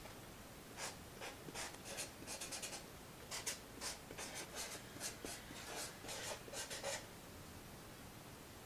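Faint, quick scratching strokes like handwriting, about six seconds of them in rapid runs, then they stop.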